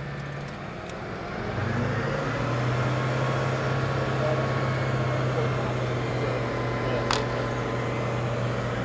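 Engine of a truck-mounted crane running steadily, getting louder about a second and a half in. A single sharp click comes near the end.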